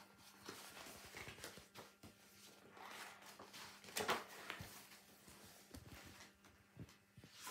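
Rustling of a hardback picture book and bedcovers as the book is handled and lowered onto the duvet, with a sharper, louder rustle about four seconds in.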